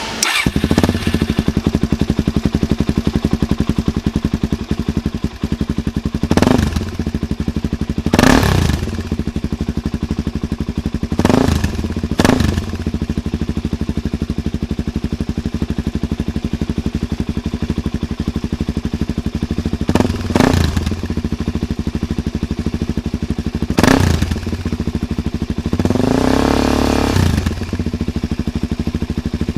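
Suzuki DRZ400SM's single-cylinder four-stroke engine idling through a GPR titanium oval exhaust, with six short throttle blips spread through the idle and one longer rev that rises and falls near the end.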